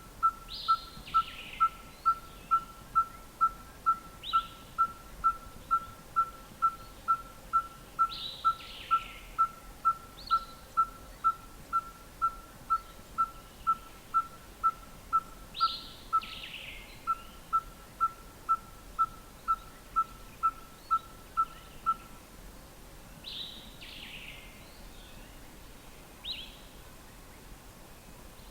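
Red-fronted tinkerbird singing its song of short, pure, identical 'tink' notes, about two and a half a second, like a hammer striking an anvil, sung with the beak closed. The run pauses briefly partway through and stops near the end. Another bird's higher, falling calls come in several times.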